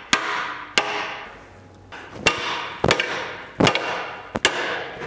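Hammer blows on a laser-welded steel tab clamped to a steel welding table, in a destructive bend test of the weld. There are six strikes at uneven intervals, each ringing out afterwards, with a pause after the second.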